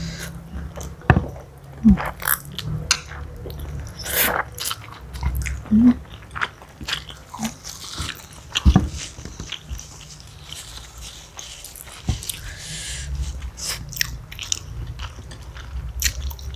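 Close eating sounds of spicy noodles and meatballs: noodles slurped from chopsticks and mouthfuls chewed, with scattered sharp wet clicks.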